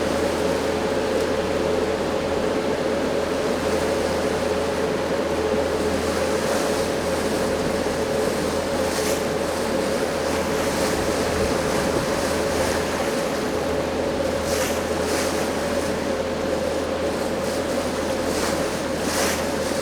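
Tour boat's engine running steadily, a constant hum with a steady two-note drone, under the rushing of water along the hull and wind on the deck.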